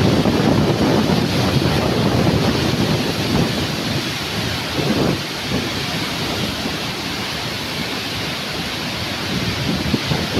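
Floodwater pouring through a dam spillway: a loud, steady rush of churning water, a little louder over the first couple of seconds.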